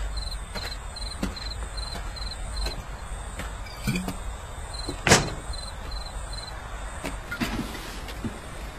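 Low steady rumble with scattered light knocks, and a high chirping in short, evenly repeated groups that drops out for about two seconds midway. A single sharp knock about five seconds in is the loudest sound.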